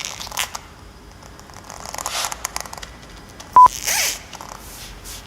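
Latex catsuit being squeezed and rubbed: scattered rubbing scrapes and creaks, with a short, loud, high squeak a little over halfway through, then a squeak that slides down in pitch.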